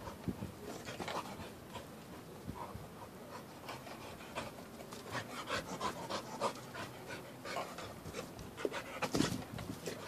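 A dog panting in short, irregular breaths, loudest near the end.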